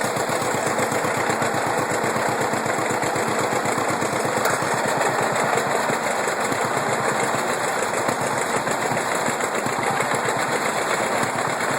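John Deere 70 two-cylinder tractor engine running steadily under load with a fast, even firing beat, mixed with a steady rush of machinery noise.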